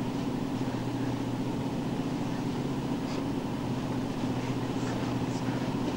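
Steady, even hum of a patrol boat's machinery, heard from inside the vessel, with two constant low tones and no change in speed.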